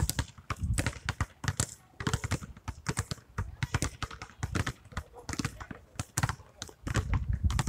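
Several basketballs dribbled at once on an asphalt court: an irregular run of overlapping bounces, several a second.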